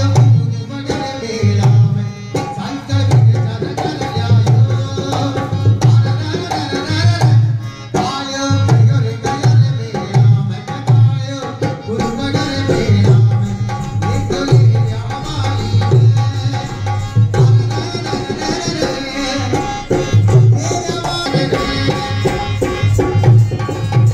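Live Rajasthani folk music for a Kalbeliya dance: a hand-played Indian barrel drum keeps a steady, driving beat under a melody.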